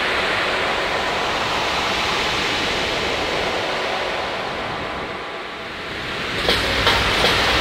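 Ocean surf: a steady rush of breaking waves that ebbs and swells again. A few sharp clicks come near the end.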